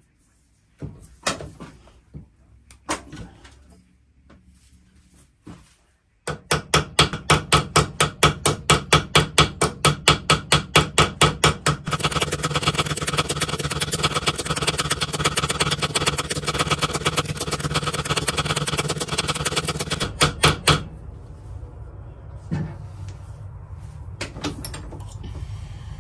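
A small hammer tapping fast and evenly on a pocketknife pin, about five blows a second for roughly fifteen seconds, peening the pin end over into a mushroom head to lock the new blade in the frame. A few light clicks come before it, and it stops about three-quarters of the way through.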